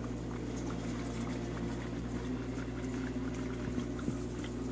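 Aquarium water bubbling and trickling over a steady low hum.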